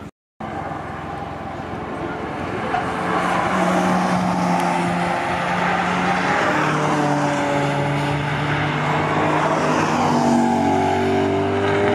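Car engines on a race track: a saloon car's engine gets louder over the first few seconds and holds a strong, steady note as it drives through the corners. Near the end a second car's engine joins, and the two notes overlap and shift in pitch.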